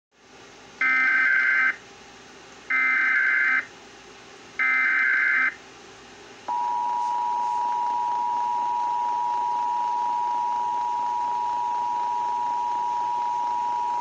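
Emergency Alert System test coming over a desktop loudspeaker: three short bursts of the screeching SAME header data tones, about a second apart, then the steady two-tone attention signal starting about six and a half seconds in.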